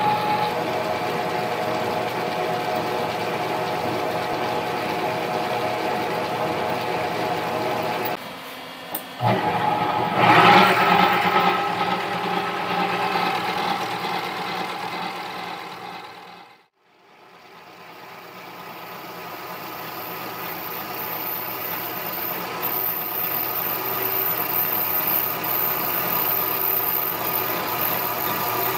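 Mini lathe running with a steady motor whine while a grooving tool cuts a groove into an aluminium pulley blank. Partway through the sound gets louder for a couple of seconds, then drops almost to nothing and slowly builds back up with a thin high whine.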